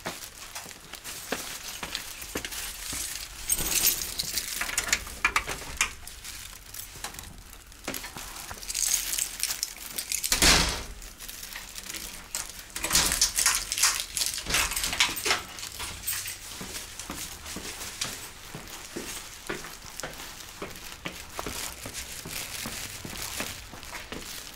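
Rustling and handling noise of clothing and a bag against a body-worn action camera as the wearer walks, with scattered clicks, and one loud knock about ten seconds in as a metal-framed glass door is handled.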